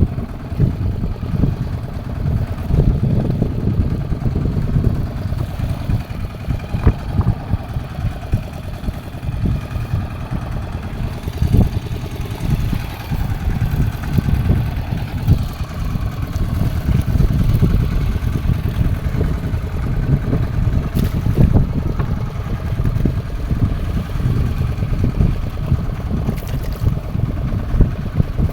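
Wind buffeting the microphone on a small fishing boat at sea, a steady low rumble with irregular gusts.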